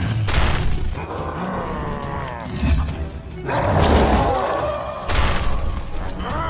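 Cartoon soundtrack: background music with a character's growls and roars over it.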